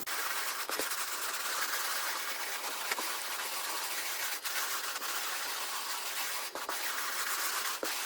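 A brush scrubbing sand into a test carpet: a steady, continuous rasp of bristles and grit on carpet pile.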